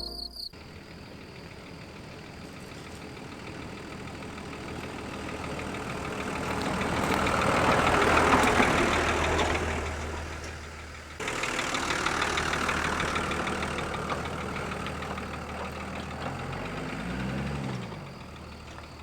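Nissan Patrol Y60 4x4 engine running as the vehicle drives past, its engine and tyre noise swelling to a peak and fading away, then a second pass after a cut.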